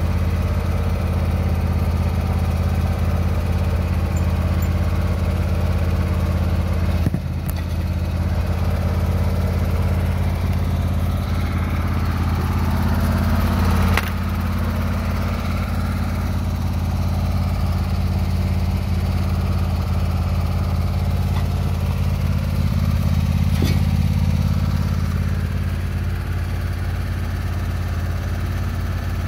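Craftsman lawn tractor's engine idling steadily.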